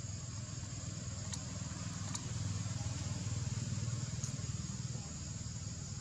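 Steady insect chorus, an even high buzz at two pitches, over a low rumble that swells for a couple of seconds in the middle. There are a few faint ticks.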